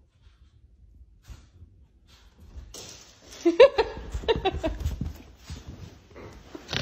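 French bulldog vocalizing in a string of short, wavering yelps and grumbles, starting about three seconds in.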